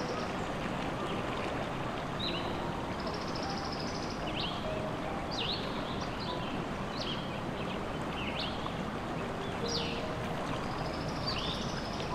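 A stream running steadily, with a small bird giving short sweeping chirps about once a second over it.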